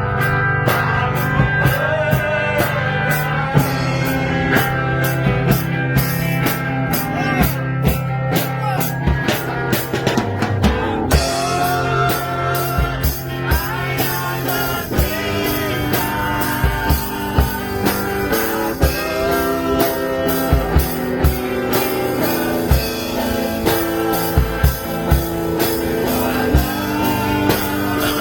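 Live band music with drums, guitar and singing, driven by a steady beat; the band grows fuller about eleven seconds in.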